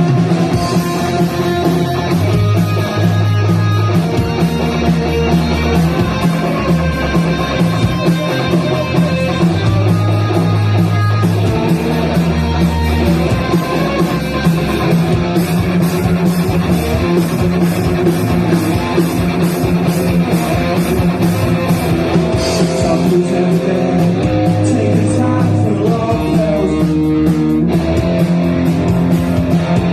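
Live rock band playing loud and steady: electric guitar over bass notes and drums, with cymbal hits growing busier about halfway through.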